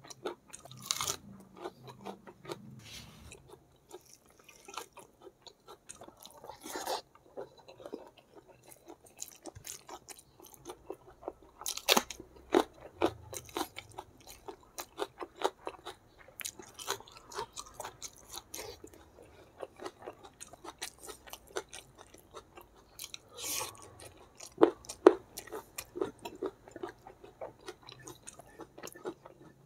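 Close-up chewing and crunching of a meal eaten by hand: raw green vegetables, spicy squid and rice, with irregular sharp crunches and wet mouth sounds. A few crunches stand out louder, about twelve seconds in and again near twenty-five.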